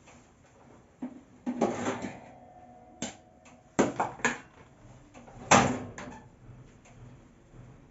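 A series of about six sharp knocks and clatters of household objects being handled and set down, the loudest about five and a half seconds in.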